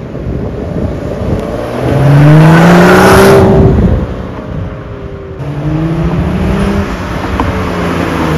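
BMW 135i's turbocharged straight-six, straight-piped through a muffler delete, accelerating hard: the exhaust note climbs in pitch, drops back, then climbs again, and starts a third climb near the end. The first pull, about two seconds in, is the loudest.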